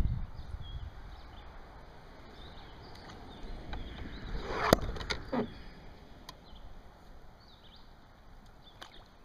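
Small birds chirping faintly and repeatedly. About four and a half seconds in, a brief rushing swish ends in a sharp click, with a few more sharp clicks and knocks later, from the fishing rod and paddle being handled in the kayak.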